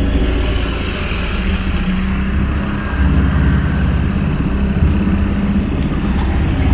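Small boat's outboard motor running steadily under way, getting a little louder about three seconds in.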